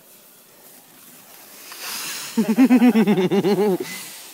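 A burning handheld firework hissing, the hiss swelling a little before halfway, then a person's loud wavering, warbling cry for about a second and a half.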